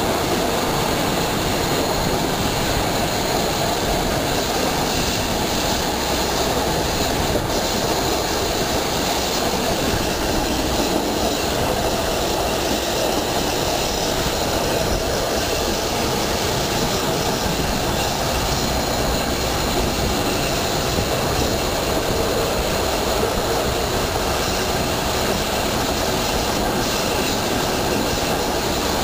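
Passenger train running along the track, heard from an open coach window: a steady, even noise of the wheels on the rails and the moving cars.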